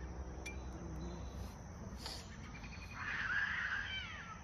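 A bird calls for about a second near the end: a burst of chirps ending in quick falling whistles. Earlier there are two light clicks as a bolt is worked into place.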